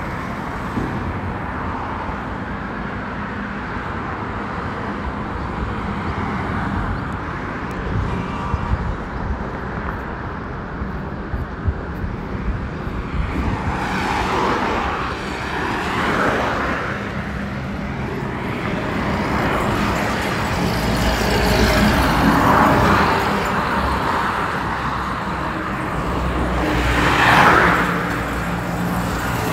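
Highway traffic noise: a steady hum of road and engine noise with vehicles passing by every few seconds, each swelling and fading. The loudest pass comes near the end as a truck goes by.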